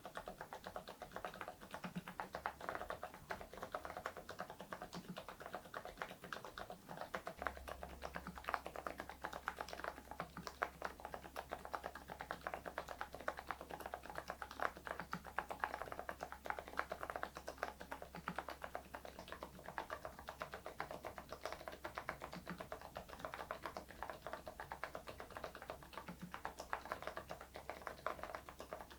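Steady, fast typing on a mechanical keyboard fitted with thick PBT keycaps, a continuous stream of key clicks and clacks. A faint low hum joins in underneath.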